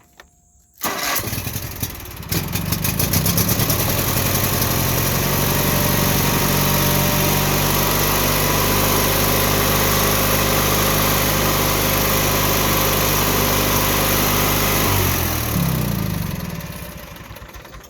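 Craftsman mower engine cranked by its starter, catching about two seconds in and running steadily with its ignition jumped to bypass a shorting key switch, then shut off about 15 seconds in, its pitch falling as it winds down.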